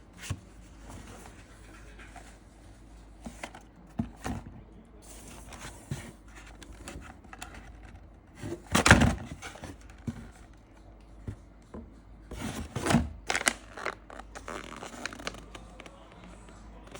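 Irregular handling noises: scattered light knocks, scrapes and rustling, with the loudest bursts about nine seconds in and again around thirteen seconds.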